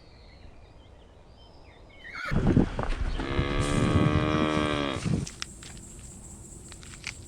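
A cow mooing once, a long call of about three seconds that starts about two seconds in.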